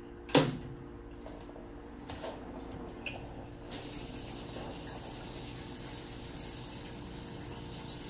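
Vintage GE Spacemaker portable washer starting up: a sharp click as the cycle knob is pulled out, a few lighter clicks, then from about three and a half seconds in a steady rush of water as the tub begins to fill from the bottom up.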